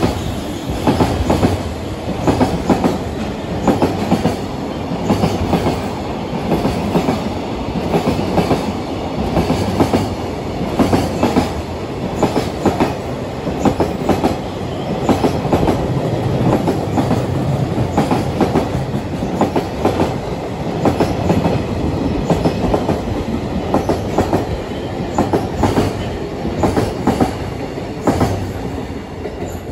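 A long freight train of container wagons passes at speed, its wheels clattering over the rail joints in a regular run of clacks over a steady rumble. The sound starts to fade near the end as the last wagons go by.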